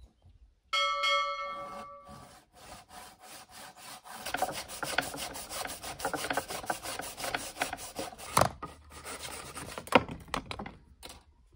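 Hand back saw cutting through a peeled wooden branch in quick back-and-forth strokes, with a short metallic ring about a second in and two sharp knocks near the end.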